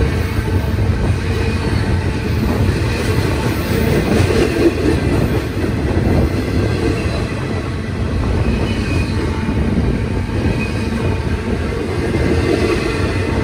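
Double-stack intermodal well cars of a BNSF freight train rolling past close by: a steady rumble of steel wheels on rail, with faint high wheel tones over it.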